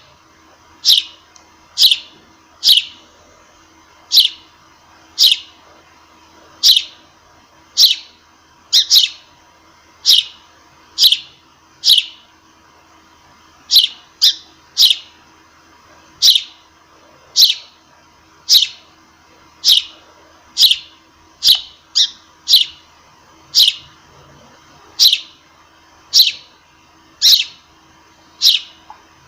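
A sparrow chirping: single short, sharp chirps repeated about once a second, now and then two in quick succession.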